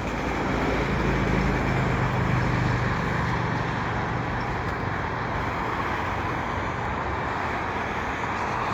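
A freight train receding after its last car has gone by, its low rumble fading over the first few seconds into a steady background roar of passing traffic.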